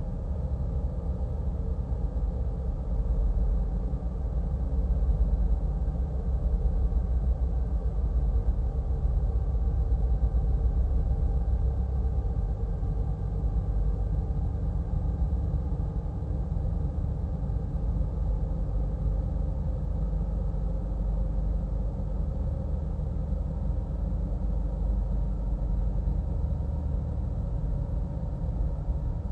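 A low, steady rumbling drone with several faint held tones above it, unchanging throughout: an ambient drone soundtrack.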